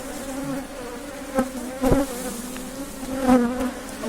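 Honey bees from an opened hive buzzing en masse: a steady, even hum, with a couple of sharp knocks about halfway through.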